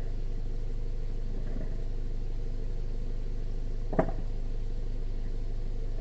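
Car engine idling steadily, with one short knock about four seconds in.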